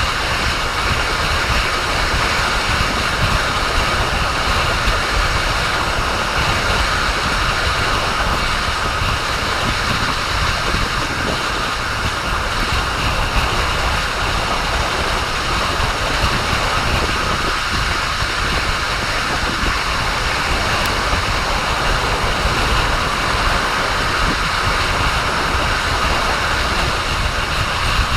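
Train running on the track: a steady, even rumble of wheels on rails that holds at the same level throughout.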